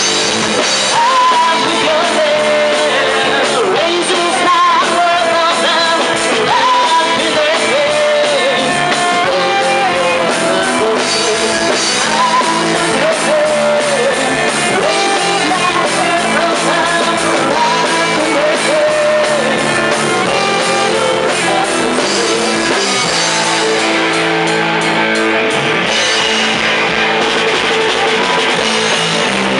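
Live rock band playing: a singer's vocal line over electric guitars, bass guitar and drums. The singing stops after about twenty seconds, leaving the band playing on.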